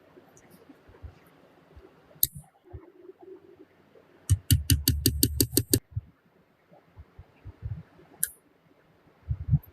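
Sharp clicks and light knocks, with a quick, even run of about ten clicks a little over four seconds in.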